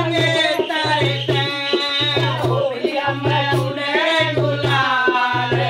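Women singing a Holi bhajan in folk style, accompanied by a dholak beating a steady, repeating rhythm.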